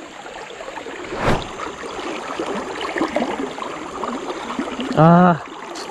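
Fast river current rushing steadily. There is a single knock about a second in and a short, loud voice call near the end.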